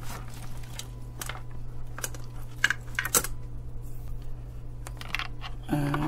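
Scattered light plastic clicks and taps as an Ethernet patch cable's RJ45 plug and a handheld plastic cable tester are handled, over a steady low hum.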